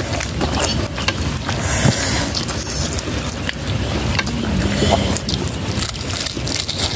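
Crispy fried chicken being torn apart by hand and chewed, with scattered crackling clicks over a steady low rumble.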